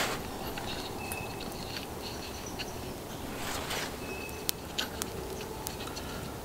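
Light handling of a handmade wooden frame saw: a few sharp clicks in the second half and a soft brush of cloth about halfway through, over quiet woodland background. A short high peep recurs about every three seconds.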